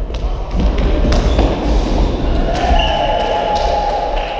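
Indoor futsal game sounds: the ball being struck and bouncing on the court, with players' voices and a held high sound over the last second and a half.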